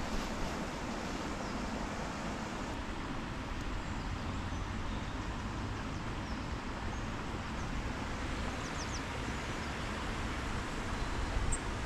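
Steady outdoor wind noise with a low rumble on the microphone, and a few faint high bird chirps a little past the middle.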